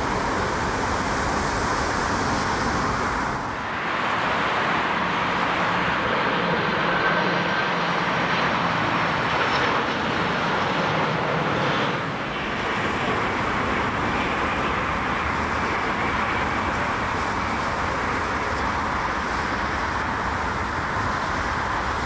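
Jet airliner engines during landings, a steady rushing noise, broken by two brief dips in loudness about 3.5 and 12 seconds in.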